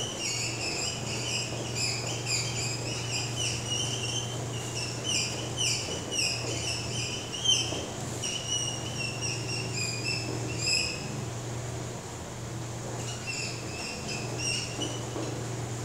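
Whiteboard marker squeaking against the board in quick, short strokes as words are handwritten, pausing briefly about three-quarters of the way through before starting again, over a steady low hum.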